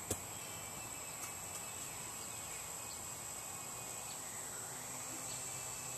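Outdoor background of insects droning steadily at a high pitch, with a few faint bird chirps and a light click right at the start.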